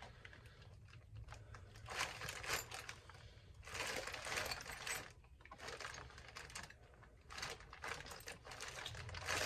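Small metal chainsaw parts clicking and rattling against each other as they are rummaged through in a bag, in four short bursts.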